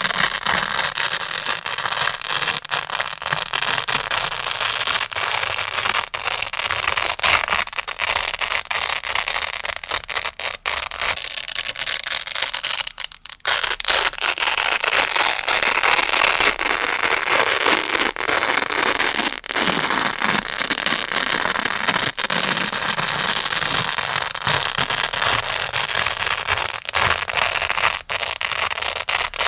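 Grey Velcro (hook-and-loop) pad worked close to the microphone: a loud, continuous, dense crunchy crackle, with a few short breaks.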